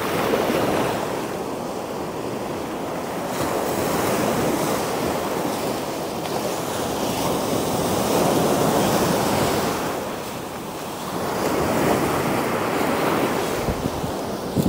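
Ocean surf in the shore break: waves breaking and foamy water washing in and draining back, swelling and fading every few seconds. Wind buffets the microphone, with a few low thumps near the end.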